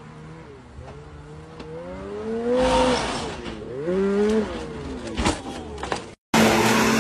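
Snowmobile engine revving twice, each rev climbing in pitch then falling back, as the sled is driven up onto a pickup's deck. A few sharp knocks follow near the end as the sled tips off the side.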